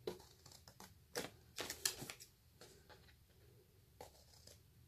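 Scissors snipping through folded white card, a handful of short cuts at irregular intervals.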